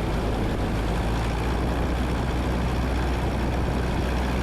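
Cabin noise of a 1977 Cessna 172N on final approach: its Lycoming O-320 four-cylinder engine and propeller droning steadily at approach power, under a constant rush of airflow.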